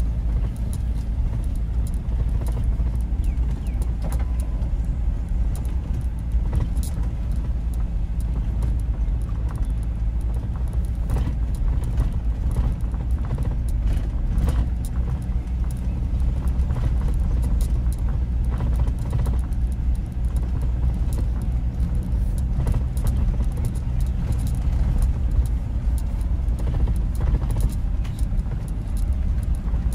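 Car driving: a steady low engine and road rumble, with frequent small rattles and clicks.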